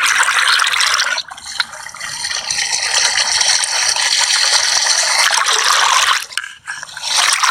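Rushing, gushing whirlpool water picked up by a waterproof GoPro put down into the whirlpool's hole, with a rattling clatter over it. The sound drops away sharply about a second in and again near the end.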